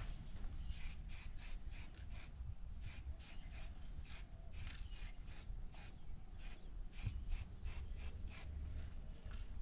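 Aerosol spray-paint can hissing in short quick bursts, about four a second, with a few brief pauses.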